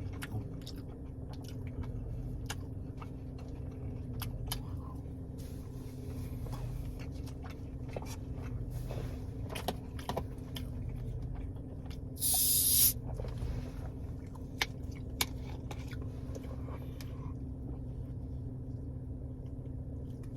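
Close-up chewing and crunching of fried popcorn chicken, many small sharp clicks over a steady low hum. About twelve seconds in comes one short, loud hiss.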